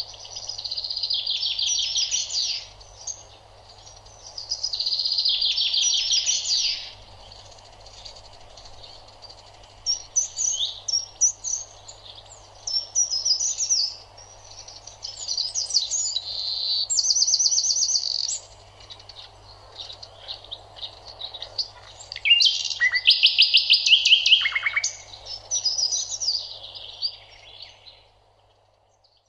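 Birds singing: chirps and trilled song phrases that come in bursts every few seconds, over a faint steady hum. The song fades out near the end.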